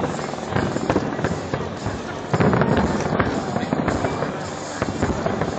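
Fireworks display across the water: a rapid, dense run of booms and crackling bursts, growing louder about two and a half seconds in.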